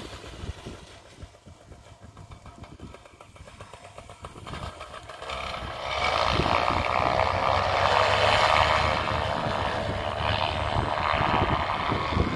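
Paramotor engine and propeller, quiet at first, then opening up to full throttle about five and a half seconds in and running loud and steady for the takeoff run.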